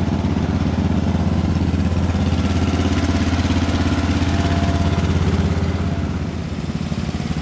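Garden tractor's small engine running steadily close by, with an even low thrum; it eases off slightly about six seconds in.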